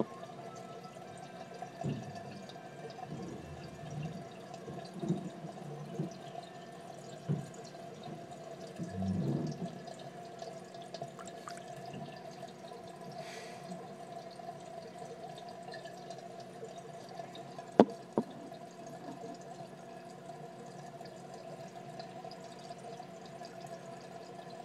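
Aquarium water dripping and trickling over a steady hum, with a few soft knocks in the first half and two sharp clicks about three quarters of the way through.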